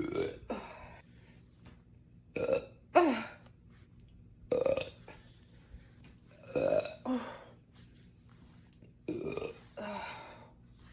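A woman burping over and over, about every two seconds, the burps often coming two in quick succession.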